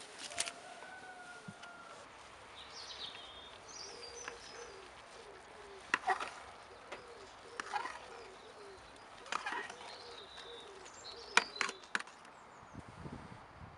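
Metal utensil clinking against a steel cooking pot as rice is uncovered and stirred, a sharp clink every second or two. Birds chirp in the background.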